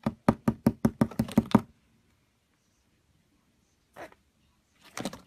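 Quick run of about a dozen knocks on a cardboard box, speeding up, over the first second and a half; then a single knock about four seconds in and a few more near the end.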